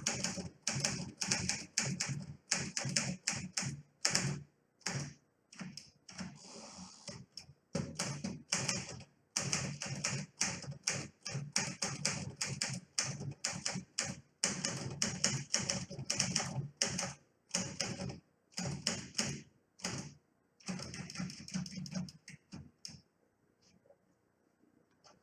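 1950 Smith Corona Silent typewriter being typed on: fast runs of keystrokes in bursts with short pauses, and a brief rasp about six seconds in. The typing stops near the end.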